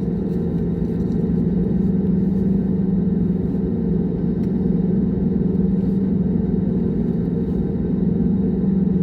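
Steady drone of a jet airliner heard from inside the passenger cabin: engine and airflow noise with a constant low hum, unchanging in level.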